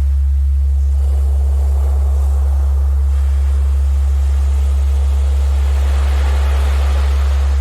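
A steady, deep electronic tone, the loudest sound, held without change: a generated Rife-frequency tone. Beneath it, sea surf washes in and out, swelling about a second in and again near the end.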